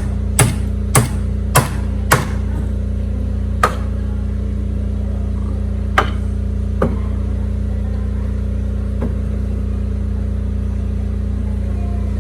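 Hammer blows on the fence work: about two strikes a second for the first couple of seconds, then a few scattered, weaker strikes, over a steady low hum.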